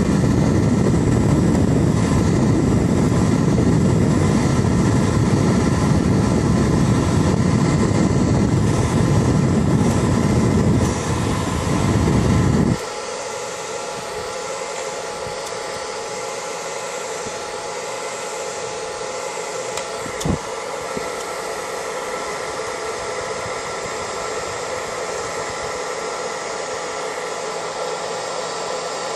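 Handheld hair dryer running, blowing hot air to shrink a PVC sleeve onto an 18650 battery cell. A heavy low rumble cuts off abruptly about thirteen seconds in, leaving a quieter steady motor whine and hiss, with a single click about twenty seconds in.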